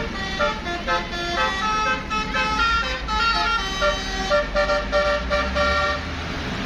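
Bus 'telolet basuri' multi-tone horn playing a tune in quick, changing notes over a low engine rumble, stopping about six seconds in.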